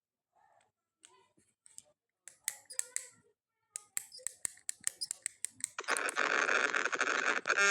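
Scattered sharp clicks and taps coming through a video-call participant's open microphone. From about six seconds in, a loud, steady rushing noise comes in and stays.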